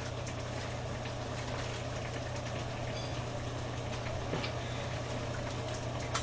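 A steady low hum with an even hiss, and a few soft clicks of chopsticks against dishes.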